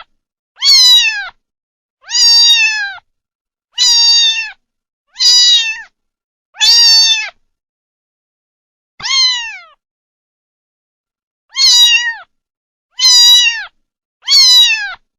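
Kitten meowing over and over: about nine short, high meows, each dropping in pitch at the end, with silence between and a longer pause midway.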